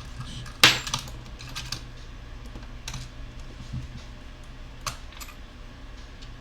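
A few sharp clicks and light taps of small plastic and metal parts being handled inside an open laptop, the loudest less than a second in, over a steady low hum.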